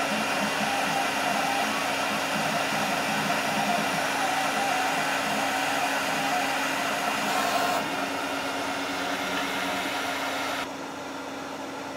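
VORON Legacy 3D printer running: a steady whir of its fans with a motor hum that wavers in pitch, stepping down quieter about eight seconds in and again near the end.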